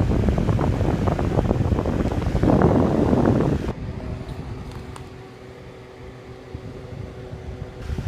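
Wexford MBF-906A box fan running, its air blast buffeting the microphone held close to the grille. About four seconds in the buffeting drops away, leaving the quieter, steady whir of the fan with a faint motor hum.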